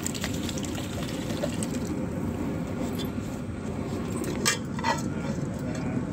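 Soaked rice being tipped from a bowl into a large pot of boiling water, over a steady low rushing noise. Two short sharp knocks come about four and a half seconds in.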